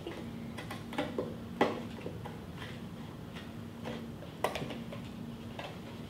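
Scissors snipping through the side of a painted cardboard milk carton: a handful of short, sharp snips, the loudest about one and a half seconds in and another after four seconds, over a faint steady hum.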